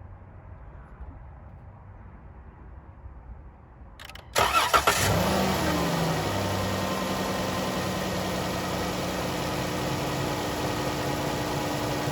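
Car engine cranking briefly and catching about four seconds in, then settling into a steady idle. It starts now that the loose battery terminals that caused the no-crank, no-start have been tightened.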